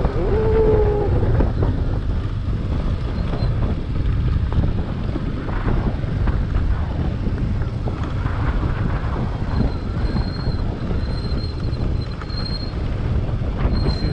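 KTM Duke 125 single-cylinder motorcycle ridden along a gravel track: a steady low rumble of engine and wind on the helmet camera's microphone, with rattling and crunching from the tyres and bike over loose stones.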